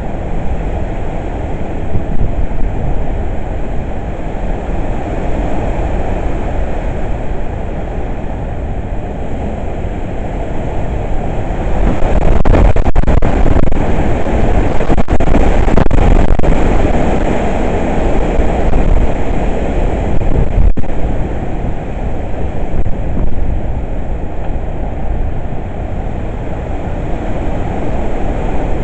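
Hurricane wind blowing hard and buffeting the microphone in a loud, low rumble. A stronger gust builds about twelve seconds in, crackling on the microphone, and eases off several seconds later.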